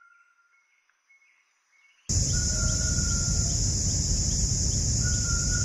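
Near silence with faint thin tones, then about two seconds in a loud outdoor ambience cuts in abruptly: a steady high drone of insects over low rumbling noise, with a thin whistling note twice.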